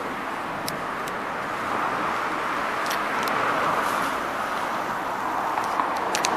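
Road traffic on a city street: cars and a van driving past, a steady tyre-and-engine rush that swells and eases, with a few light clicks.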